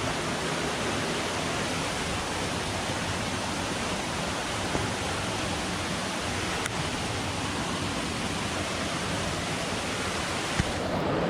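Rushing river water running steadily, an even hiss of flowing water with no let-up.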